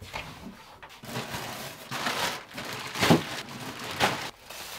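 Clothes rustling and crumpling as they are gathered up by hand, with louder rustles about two, three and four seconds in.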